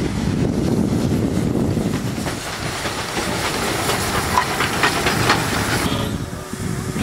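Steam tank locomotive passing slowly at close range: a heavy rumble at first, then hissing steam with clanks and clicks from the wheels and running gear. The sound drops suddenly about six seconds in.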